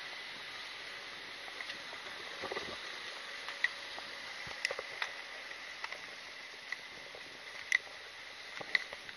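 Steady outdoor hiss with light, irregular sharp clicks and taps, about one a second, from gear knocking as the carrier walks.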